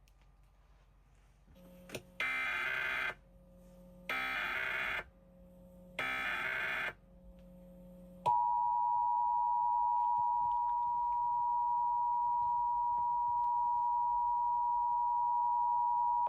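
Emergency Alert System Required Monthly Test tones: three one-second bursts of SAME digital header data, about two seconds apart, then the steady EAS two-tone attention signal held for about eight seconds. The header bursts encode the alert and announce the start of the test.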